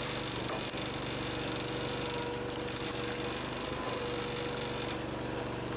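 An engine running steadily at a constant speed, with an even, rapid firing pulse and a steady hum.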